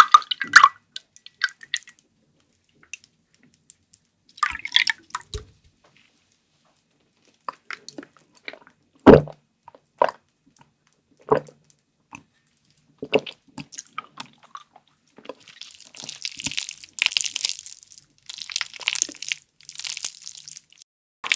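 Close-miked eating sounds of creamy carbonara fire noodles and sausage with cheese sauce: scattered wet, sticky mouth clicks and smacks of chewing with short silences between. From about two-thirds of the way through, a run of louder, crunchier chewing bursts.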